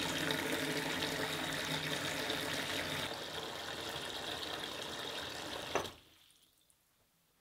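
Water running from a tap into a stainless steel sink, a steady rush that drops a little about halfway and then stops abruptly near the end.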